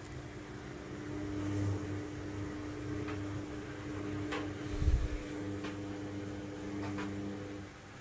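Logik front-loading washing machine's drum motor running in the load-distributing stage before spin, a steady hum with a few light clicks from the load in the drum. One heavy thump comes about five seconds in, and the motor stops near the end.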